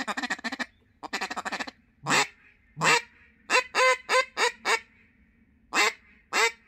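3D-printed mallard duck call blown in a deep hen-mallard sequence: a long buzzy note, a shorter one, two single quacks, a quick run of five quacks, then two more quacks.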